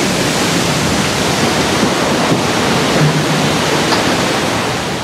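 Water rushing and surging as a ship is side-launched into a canal: a loud, steady rush of displaced water from the wave thrown off the hull, easing slightly near the end.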